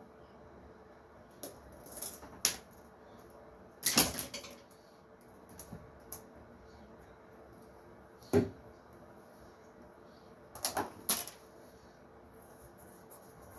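Small parts and wires being handled on a workbench: a few scattered clicks and knocks, the loudest about four seconds in and a quick pair near the end.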